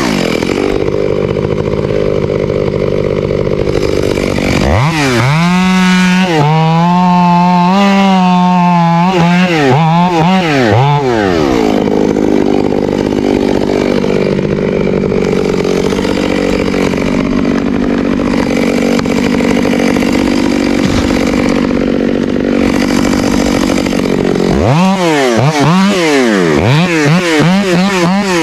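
Two-stroke chainsaw running at high revs during tree felling, its pitch swinging up and down in the first part and again near the end, with a long steadier stretch in between.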